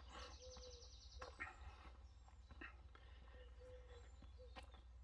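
Faint outdoor birdsong: scattered high chirps and a rapid high trill about a quarter of a second in, over a low steady rumble.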